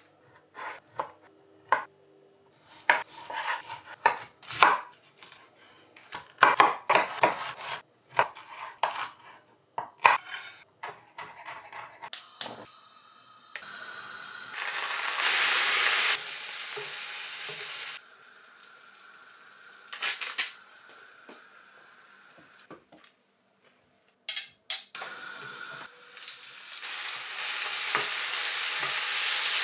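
Kitchen prep sounds: a run of sharp knocks and clatter of utensils and cookware, then food sizzling in a hot frying pan. The sizzle comes in about halfway through, eases off for a while, and swells again near the end.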